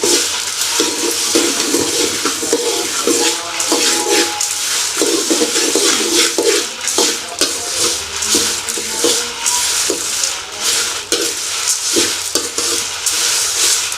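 Spatula stirring whole spices and dal dry-roasting in a kadai without oil: repeated irregular scraping strokes over a steady dry rustle of the grains shifting in the hot pan.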